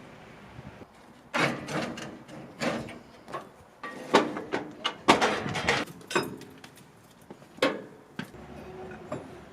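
Metal clanking and scraping, a run of uneven knocks over several seconds, as the steel loading platforms of a trailer-mounted Ferris wheel are handled and lowered.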